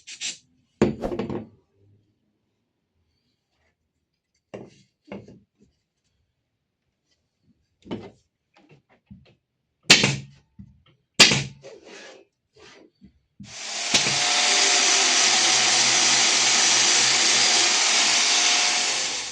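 Wood and tools being handled, with scattered knocks and clicks. Then a power tool starts about three-quarters of the way in and runs steadily for about six seconds.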